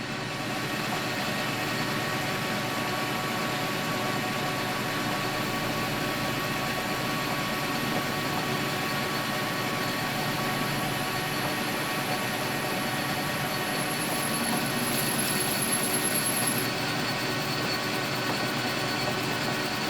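Metal lathe running steadily while turning down the outside diameter of a brass workpiece: a steady motor-and-gear hum made of many even tones. A thin high whine comes in and stops suddenly about three seconds before the end.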